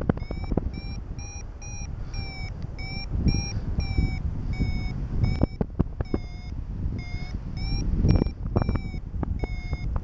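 Paragliding variometer beeping in lift, short repeated beeps at about two a second, signalling that the glider is climbing in a thermal. Wind rumbles and buffets on the microphone underneath.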